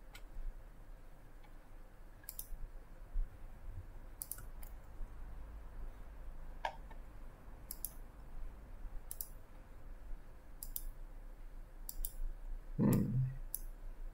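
Computer mouse clicking, single clicks and quick double clicks every second or two.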